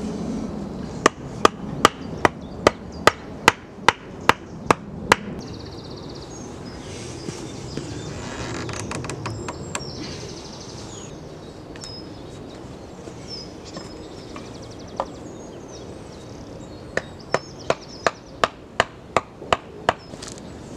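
Wooden stakes being driven into the ground with a hatchet: two runs of sharp, evenly paced knocks, about two and a half a second, one near the start and one near the end, with a single knock in between.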